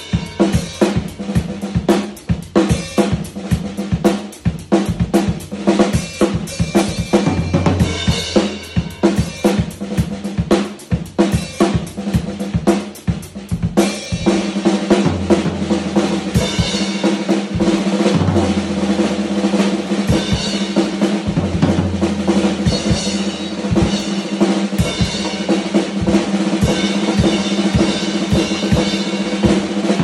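Mapex Atomizer snare drum with a Remo Power 77 Colortone smoke batter head, played on a drum kit: busy, fast snare strokes and rolls for about the first half, then a steadier beat with the bass drum and ringing snare hits.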